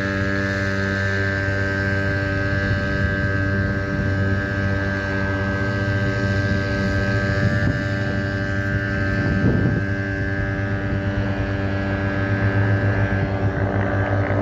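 A steady engine drone that holds one pitch throughout, with a couple of brief noisy swells past the middle.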